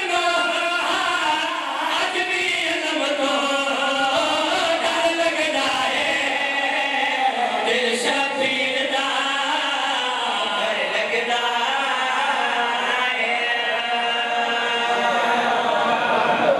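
A group of men chanting a noha, a Shia mourning lament, together into microphones in long held, wavering notes.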